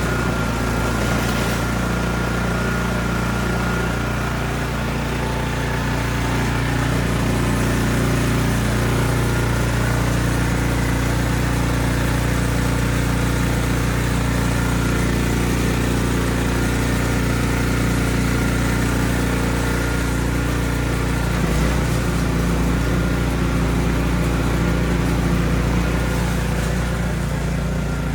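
Ariens Platinum SHO 24-inch two-stage snowblower running steadily while clearing deep snow.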